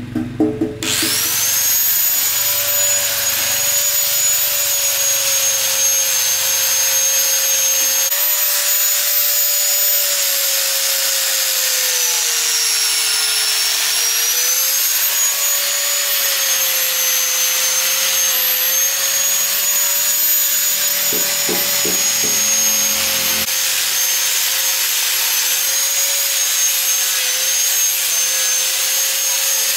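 Electric angle grinder spinning up about a second in, then running with a steady high whine as its disc grinds the rust off the steel of a crusher hopper. The pitch sags a little a few times as the disc is pressed harder onto the metal.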